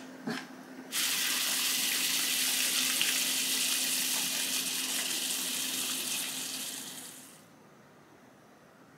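A single knife cut on a wooden cutting board, then water at a rolling boil in a pot, a steady bubbling hiss, as fish skin in a mesh strainer is blanched in it. The bubbling runs for about six seconds and fades out near the end.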